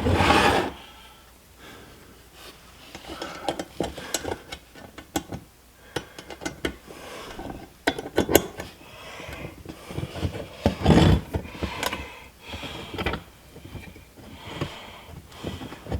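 Irregular light metallic clicks, clinks and small knocks of hand work on a steel dead-pedal bracket as 8 mm nuts are started on it, with a louder knock about eleven seconds in.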